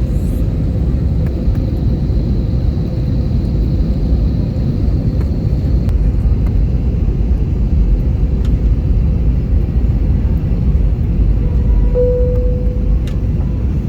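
Airplane noise: a loud, steady low rumble with a faint steady whine above it, and a short clear tone about twelve seconds in.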